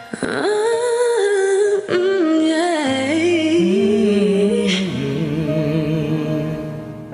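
Sung vocal holding long, wavering notes over a karaoke backing track, with a low bass line joining about three seconds in.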